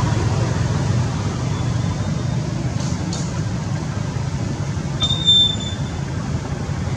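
Steady low outdoor rumble with no clear source, with a brief high-pitched squeak about five seconds in.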